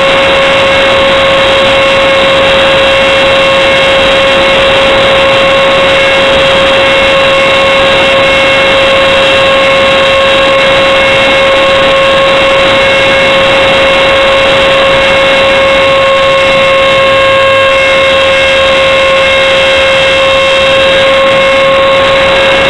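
Robbe F-18 model jet's ducted fan running in flight, a steady loud whine at an unchanging pitch over a continuous rush of wind, as picked up by a camera mounted on the airframe.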